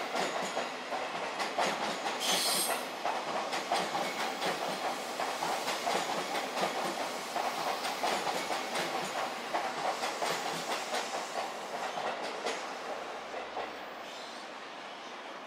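Electric commuter train rolling slowly past, its wheels clacking in an uneven rhythm over rail joints and points, with a brief high hiss about two seconds in. The sound eases off near the end.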